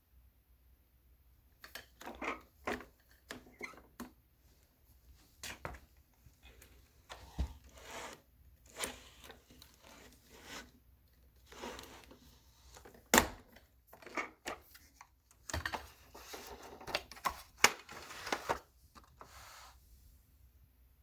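Irregular handling noises: scattered clicks, knocks and short rustling scrapes, with two sharper knocks, one about 13 seconds in and one near 18 seconds.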